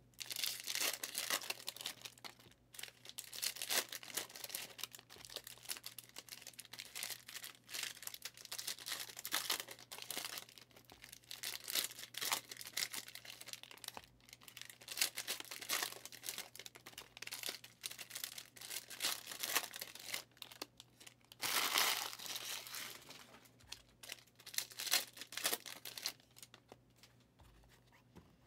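Foil trading-card packs of Prizm Draft Picks football cards being torn open and crinkled by hand: a continuous crackle of wrappers, with the loudest tearing about three quarters of the way through.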